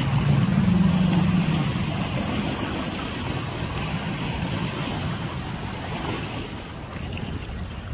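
Personal watercraft (jet ski) engine running as it approaches across the water, loudest in the first second or two and then easing off, over the wash of choppy water and wind on the microphone.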